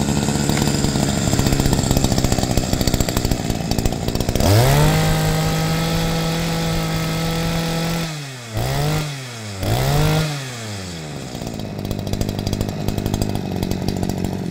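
Robin 20 cc two-stroke brush cutter engine pull-started, catching at once and idling. About four seconds in it revs up and holds at high speed for a few seconds, is blipped twice, and settles back to a steady idle.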